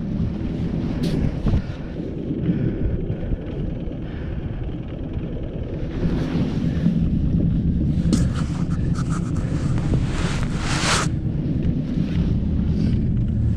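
Jacket fabric rustling and scraping against a body-worn camera's microphone as the wearer moves about, over a steady low rumble. The loudest scrape comes about ten seconds in.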